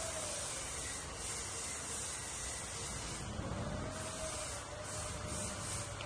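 A hand rubbing a baby macaque's cloth-covered belly: soft swishing strokes that come and go several times, over a steady background hiss with a faint wavering tone.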